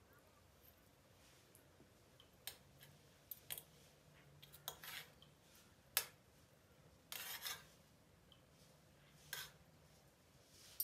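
A fork and knife clinking and scraping against a plate as fried salmon is cut: scattered short clicks and brief scrapes that begin a couple of seconds in, the sharpest click about six seconds in.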